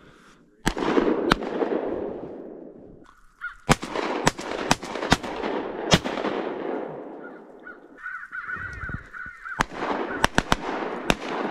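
Shotgun shots fired in quick volleys by several hunters, about a dozen in all, each trailing off in a long echoing rumble. Crow caws come in between, about eight seconds in and again near the end.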